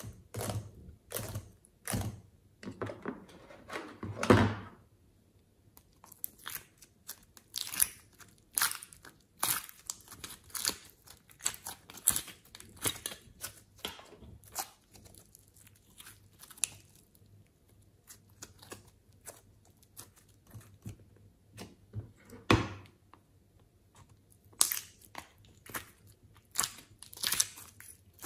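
Hands squishing glossy slime and peeling soft clay out of plastic moulds: a run of sticky clicks, pops and tearing noises, with a quieter stretch in the middle.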